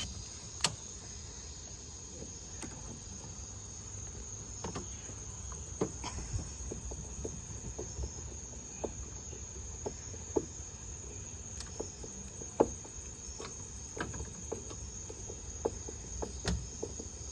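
Crickets chirping steadily, with scattered light clicks and knocks from hand work on a car door.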